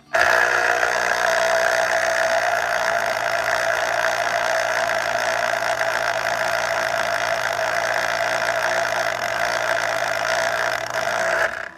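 Electric citrus juicer's motor running steadily, its reamer cone spinning as an orange half is pressed down onto it; a steady whirring hum that cuts in and out abruptly.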